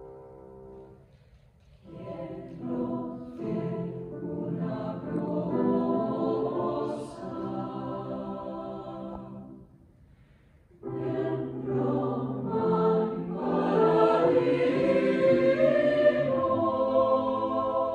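Mixed choir singing in several parts, in two phrases with a short pause about ten seconds in; the second phrase swells louder before easing near the end. A held chord fades away in the first second before the voices enter.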